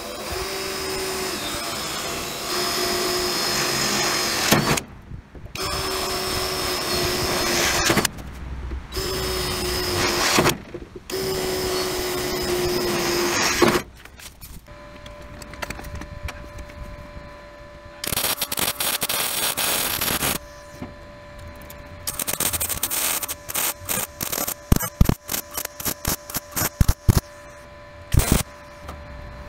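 Cordless drill drilling into the steel of a 1952 IH truck's fender, its motor whining in four runs of a few seconds each. After a pause comes a two-second burst of hissing, then MIG welding in many short crackling tacks over a steady hum.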